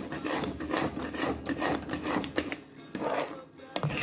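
Flat metal spatula scraping and stirring thick halwa in a kadai, in quick repeated strokes with a short lull about three and a half seconds in.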